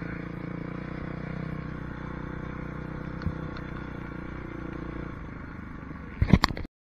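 Kawasaki motocross bike's engine running steadily at low speed while it is ridden slowly, with one sharp tick partway through. A few loud knocks come near the end, then the sound cuts off abruptly.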